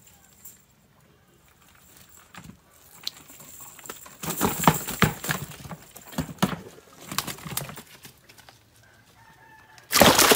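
Live fish flapping and slapping in fits, then thrashing hard in a plastic basin of water near the end, a sudden loud splashing.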